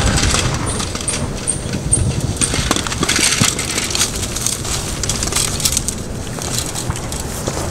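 Bicycle ridden over a dirt forest track: tyres crunching and rattling, with a regular high squeak about twice a second that stops about two seconds in.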